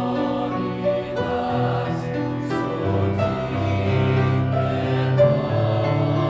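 Mixed high-school choir singing in parts with piano accompaniment, long held chords that shift every second or so, with a few soft hissed consonants about two to three seconds in.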